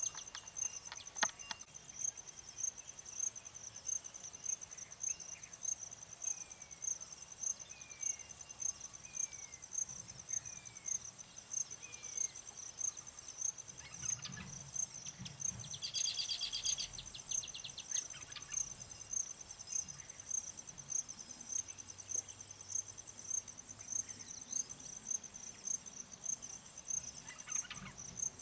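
An insect, cricket-like, chirping steadily at a high pitch, about one and a half chirps a second. Over it, a bird gives a run of five short falling whistles, then a brief buzzy chatter about halfway through.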